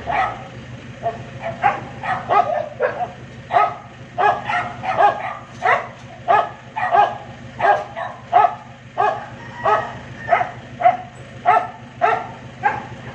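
A dog barking over and over, about two barks a second, over a steady low hum.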